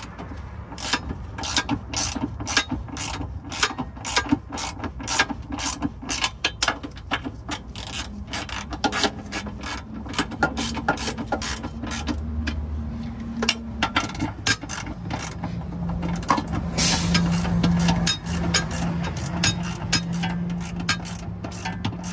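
Hand ratchet clicking in quick runs of about three clicks a second, with short pauses between runs, as the transmission mount bolts are run down snug before torquing. A low steady hum joins in about two-thirds of the way through.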